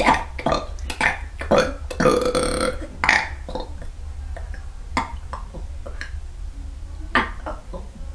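A person burping deliberately in a rapid string of short burps, with a longer, drawn-out burp about two seconds in, then a few scattered single burps: an attempt to sing a song in burps.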